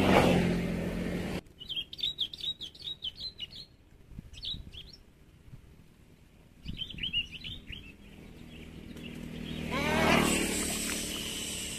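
A road vehicle going by, cut off abruptly after about a second and a half. Then a small bird chirps in quick runs of short high notes. Near the end another vehicle approaches and passes, its engine note falling as it goes by.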